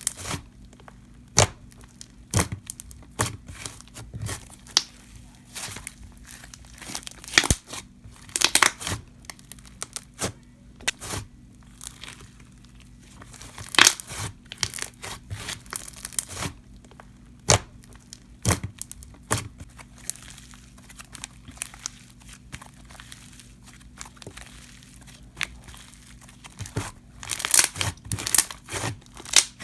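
Slime being squished, poked and stretched by hand, giving irregular sticky pops and crackles, with a denser run of crackling near the end.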